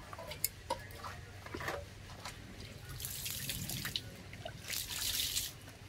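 Water splashing and trickling in two spells, about three and five seconds in, as things are washed off after seasoning the fish. A few light clicks and knocks come before it.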